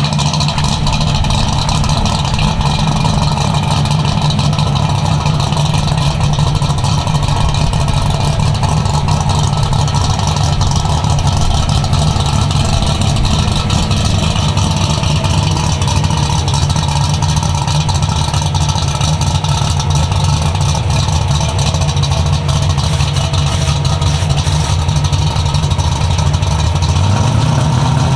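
Fox-body Ford Mustang drag car's engine idling steadily and loud on the strip; near the end the revs start to climb.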